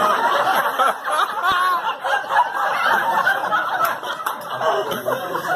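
Several people laughing and giggling over one another, mixed with chatter.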